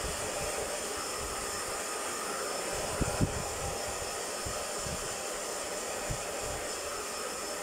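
Handheld hair dryer blowing steadily as it dries a wet Chihuahua puppy's fur, with two brief low thumps about three seconds in.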